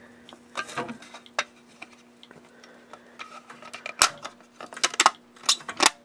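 Hard plastic clicks and clacks of a Fire-Lite BG-12 manual pull station being opened and reset after an alarm test: a handful of separate sharp knocks, the loudest coming in quick succession near the end.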